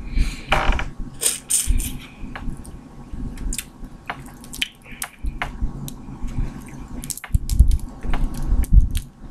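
Crawfish shells being cracked and peeled by hand close to the microphone: irregular crackling clicks with wet squishing, and a few low thumps near the end.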